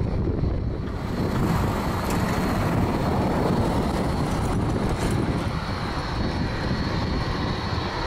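Jet airliner engines running: a steady low rumble with a thin high whine over it, growing a little louder about a second in.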